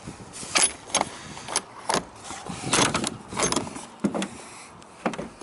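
Galvanized steel Compostumbler tumbling composter clanking and rattling as its metal drum and latched lid are handled and worked open, a series of about eight sharp, uneven metal knocks.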